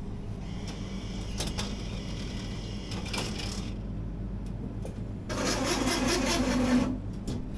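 Self-service ice cream vending machine humming steadily while a selection is made, with a few short clicks. About five seconds in, a louder noisy stretch of machine working lasts about a second and a half.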